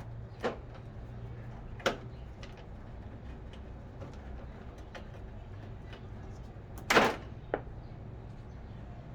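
A few sharp clicks and knocks from metal parts of a PTAC air-conditioning unit being handled, the loudest and longest about seven seconds in, over a steady low hum.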